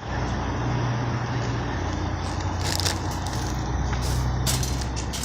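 A vehicle engine idling with a steady low hum. A few short crackles come in from about two and a half seconds in.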